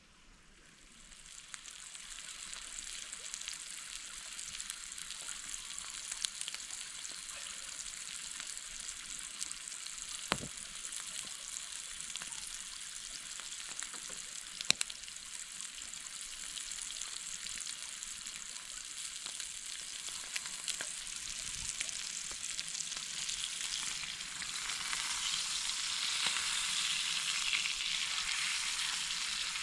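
Food frying in a pan over a campfire, a steady sizzle that swells up in the first couple of seconds and grows louder near the end, with a few sharp clicks.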